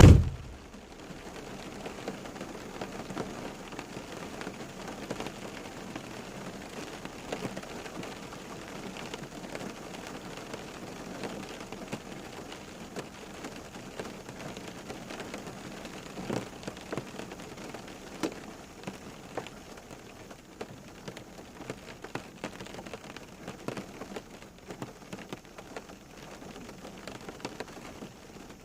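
Steady rain falling on a hard surface, with individual drops tapping here and there. A single loud thump right at the start is the loudest moment.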